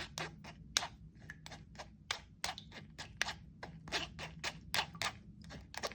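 Quick, irregular clicking and scraping of a kitchen strainer as steeped banana mash is worked through it into a cup, about four clicks a second.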